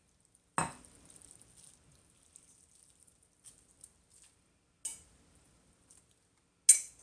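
Metal fork clinking against glass and ceramic bowls while ramen noodles are lifted from one bowl into the other: three sharp clinks, the first under a second in, one about five seconds in and the loudest near the end, with faint soft ticks between.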